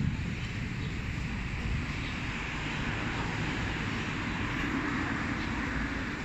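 Steady rushing noise of a passing vehicle, swelling in the middle and easing off near the end.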